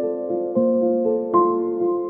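Background music of slow, gentle keyboard notes, a new chord struck about every second.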